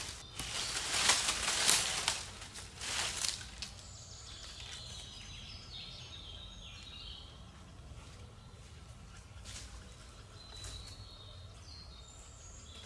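Branches and dry leaf litter crunching and rustling under handling and footsteps for the first few seconds. After that, a songbird sings short whistled phrases over quiet woodland.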